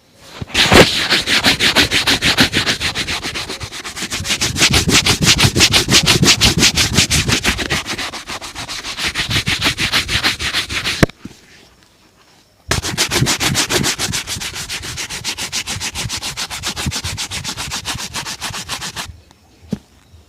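A brush worked rapidly back and forth over a shoe during a shoe shine, about six strokes a second, in two long runs with a brief pause between them.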